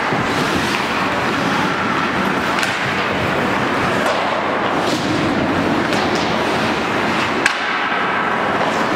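Ice hockey play in an indoor rink: skates scraping on the ice under a steady reverberant din, with several sharp clacks of sticks striking the puck, the loudest about seven and a half seconds in.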